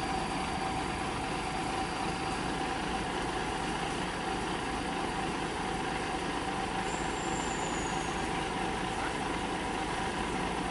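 Isuzu truck's diesel engine idling steadily while the loaded truck stands still on the slope.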